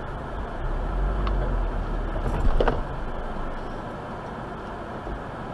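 Car driving, steady road and engine noise heard from inside the cabin, swelling for a couple of seconds, with a short pitched blare about two and a half seconds in.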